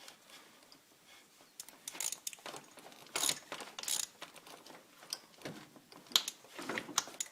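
Ratchet wrench clicking in short, irregular strokes while tightening the gearbox level plug, with scrapes of the tool on metal.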